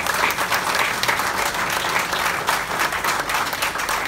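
Audience applauding: many people clapping together in a dense, steady round of applause.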